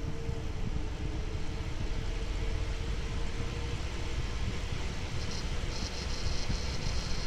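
MSI GeForce GTX 770 Twin Frozr graphics card fans running with a loud, horrible mechanical noise over a low rumble; a steady tone fades out about halfway through, and a high, fluttering rattle comes in about five seconds in. The uploader takes the noise for a fan fault.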